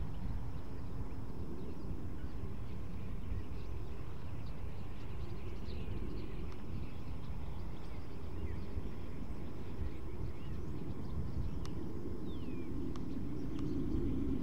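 Low steady outdoor rumble with a few faint bird chirps. Near the end a deeper jet rumble from the F-35 swells in.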